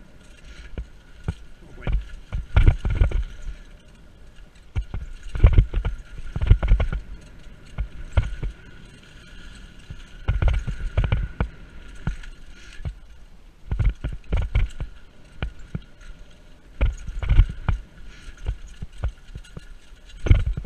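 Mountain bike riding fast down a leaf-covered dirt singletrack: clusters of thumps and rattles every few seconds as it hits bumps, with tyre and rolling noise between.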